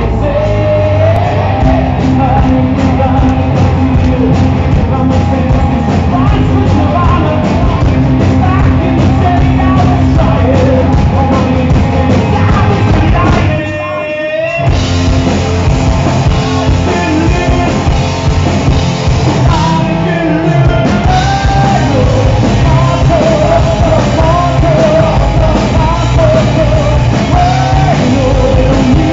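Live rock band playing loud, with electric guitars and a lead singer. About halfway through the band drops out for about a second, then comes back in.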